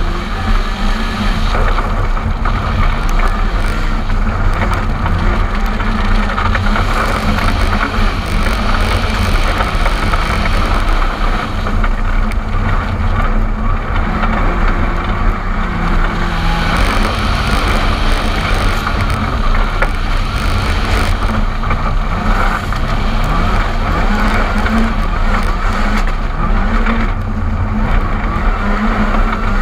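Ford Fiesta R5 rally car's 1.6-litre turbocharged four-cylinder engine driven hard at high revs, its pitch stepping up and down with gear changes and braking. The gravel road surface adds a constant noise under it, heard from a camera mounted on the car's outside.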